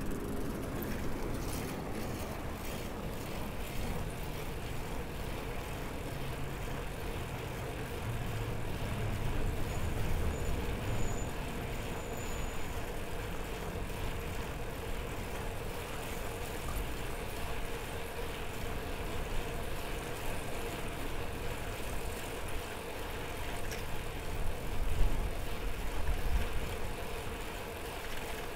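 Road traffic: motor vehicles running close by, a low engine rumble that swells about ten seconds in and again briefly near the end.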